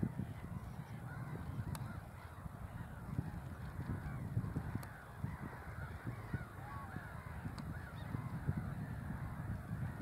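A distant flock of waterbirds calling on open water, many honks overlapping into a continuous chatter, over a steady low rumble.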